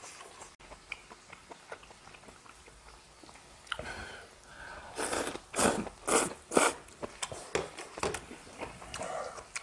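Close-miked eating: quiet chewing and small mouth clicks, then about five seconds in a run of four or five loud noodle slurps, followed by more chewing.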